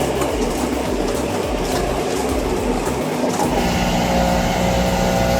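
Heavy machinery at work: a rough rumbling, grinding noise that changes abruptly about three and a half seconds in to a steady engine drone holding a constant pitch.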